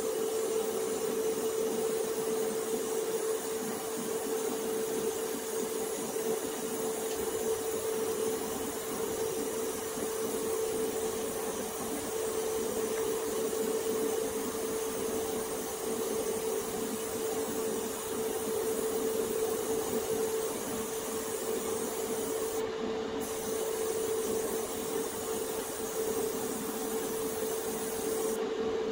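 Airbrush hissing as it sprays, over the steady hum of a spray booth's extraction fan. The hiss stops for a moment about two-thirds of the way through and again right at the end, while the hum runs on.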